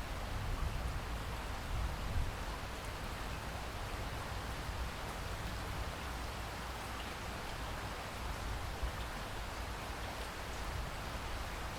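Steady rainfall, an even hiss of drops with a low rumble beneath and a few slightly louder drops or gusts.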